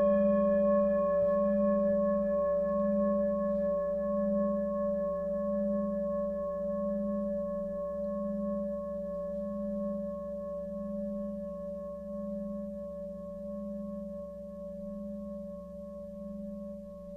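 A struck bell-like metal tone ringing on and slowly fading, with a slow wavering pulse about once a second.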